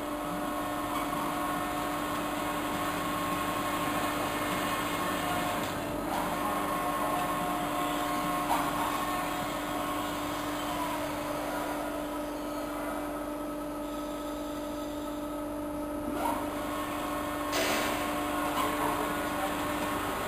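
Evashred EV110E Panther industrial shredder running under load as it shreds a foam bale. It makes a steady machine drone with a constant hum and whining tones that change a few times.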